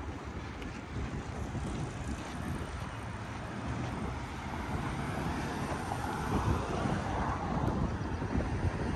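Street ambience: vehicle noise with wind on the microphone, growing louder over the second half.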